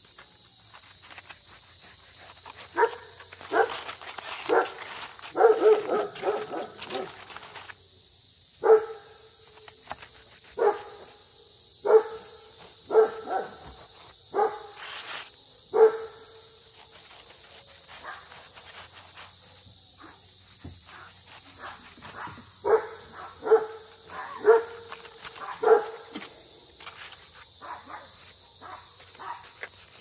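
A dog barking in bouts. A quick run of barks comes a few seconds in, then single barks about every second and a half, a pause, and another short run past the middle.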